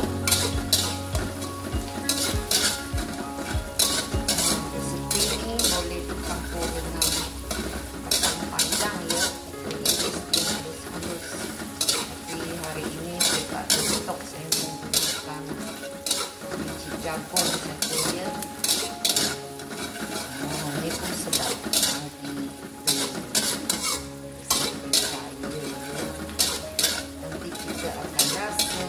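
A metal slotted spatula scraping and stirring chopped garlic and shallots around a wok, with the steady sizzle of them frying in oil. The scrapes come in quick, irregular strokes throughout.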